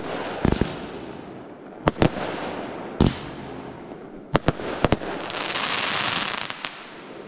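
Consumer fireworks going off: about nine sharp, irregular bangs over the first five seconds, some in quick pairs, then a hiss lasting about a second and a half.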